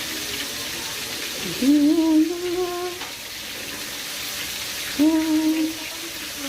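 Steady hiss of chicken frying in hot oil, with a voice breaking in twice with a long held note, once about two seconds in and again about five seconds in.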